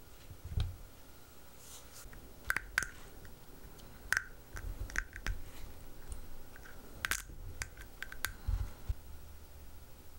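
Faint scattered clicks, ticks and small squishy sounds of fingers handling a freshly printed, still-wet resin part, with a few soft low thumps.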